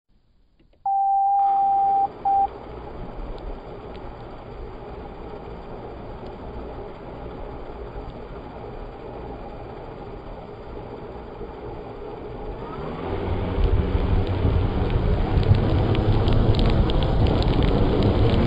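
A long electronic beep about a second in, then a short one. After that comes a steady hiss, and from about 13 seconds in a louder low rumble and rushing air builds as the FPV quadcopter's motors spin up and its propellers idle close to the ground.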